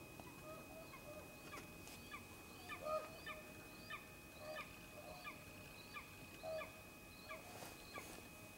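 A bird calling over and over in short, clear notes, about two or three a second, faint against a light background hiss.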